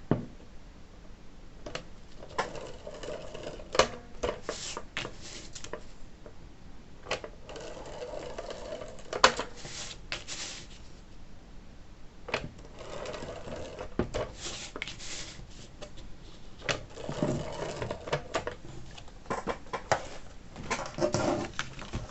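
Adhesive tape being run along the edges of a paper pop-up card: scratchy stretches of tape and paper rubbing, broken by irregular small clicks and taps, the loudest about nine seconds in.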